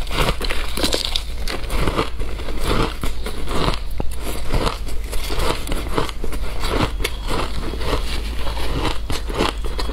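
Shaved ice being bitten and chewed close to a clip-on microphone: a dense, continuous run of crisp crunching and crackling.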